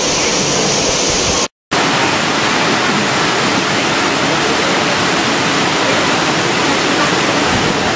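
Heavy tropical rain pouring down steadily in a downpour. The sound cuts out completely for a moment about a second and a half in, then the same steady rain resumes.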